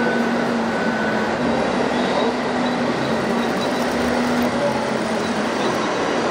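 Steady mechanical running noise of radio-controlled model vehicles, with a faint whine that comes and goes.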